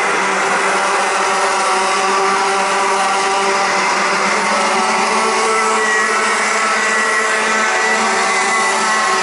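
Several Rotax Max 125cc two-stroke racing kart engines running at speed together, a loud, steady, overlapping engine whine with small shifts in pitch as the karts work through the corners.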